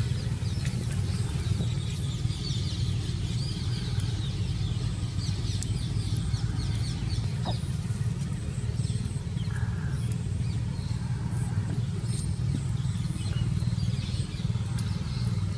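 A steady low rumble, like a motor or distant traffic, with faint bird chirps scattered throughout.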